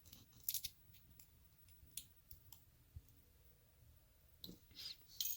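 Faint, scattered metal clicks and taps from a Yale pin-tumbler lock cylinder being handled while a thin shim is worked in at the plug to bridge the gap. The clicks come about a second apart, with a short cluster of them near the end.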